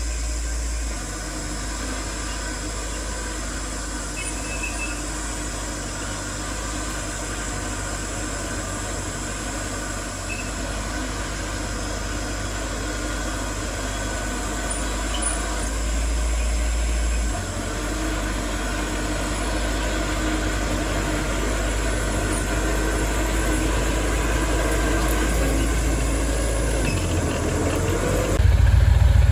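Diesel engines of heavy construction machinery (dump trucks and a bulldozer) running with a steady low rumble that swells now and then. Near the end the pitch rises and the engine noise gets suddenly louder as a machine revs up.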